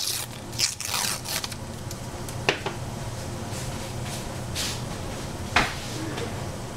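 Kitchen handling sounds: a few rustling scrapes in the first second or so, then isolated sharp clicks, over a steady low hum.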